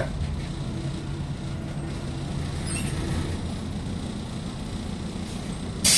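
MAZ-105 city bus heard from inside the passenger cabin: a steady low engine and drivetrain drone. A sudden, much louder rushing noise sets in just before the end.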